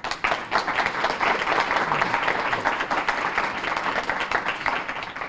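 An audience applauding, breaking out suddenly into dense, steady clapping.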